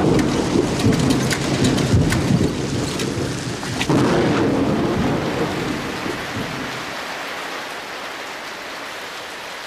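Thunderstorm: rain pouring down with rolling, crackling thunder. A fresh thunderclap rumbles in about four seconds in, then the storm dies down toward the end.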